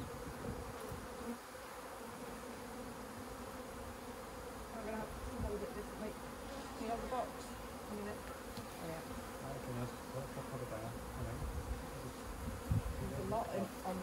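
Swarm of honey bees buzzing steadily in a dense hum, the bees disturbed and flying as the cluster is knocked and brushed into a box. A soft thump near the end.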